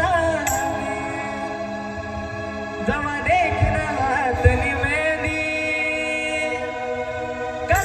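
Live Khandeshi band music: a wavering, gliding lead melody over held chords. The drums drop back for the first few seconds and come in again about three seconds in.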